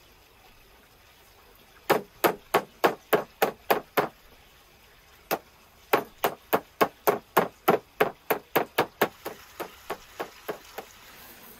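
A kitchen knife chopping on a cutting board in quick, even strokes, about three to four a second. The strokes come in two runs with a single stroke between them, and the last strokes are fainter.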